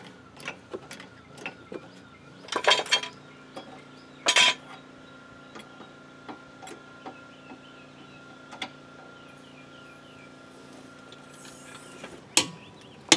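Metallic clinking and light ticking of lug nuts and hand tools at a car's wheel hub as the front wheel goes back on. There are two louder bursts of clinks and a sharp click near the end, over a faint steady hum.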